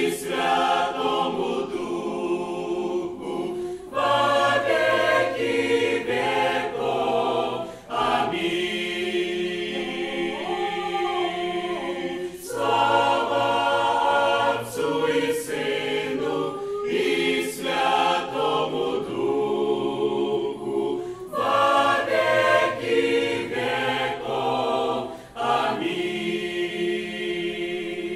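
Church choir singing in parts, in phrases with short breaks between them.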